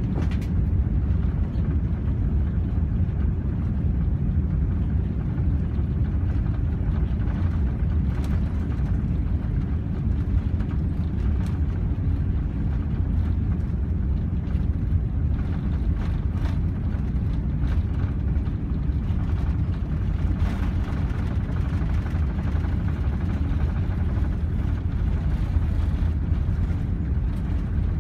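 Cabin noise of an Airbus A380-800 during takeoff: a loud, steady, low rumble of its Rolls-Royce Trent 900 engines and the airframe, with a few faint clicks and rattles.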